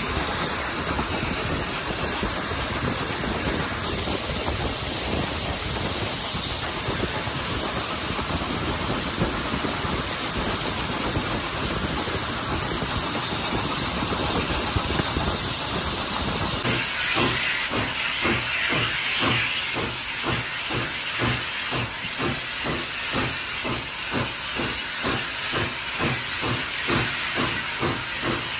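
Hunslet Austerity 0-6-0 saddle tank steam locomotive under way, heard from the footplate: a steady rush of running noise and hissing steam. About two-thirds of the way in, a regular rhythm of exhaust beats comes in and carries on.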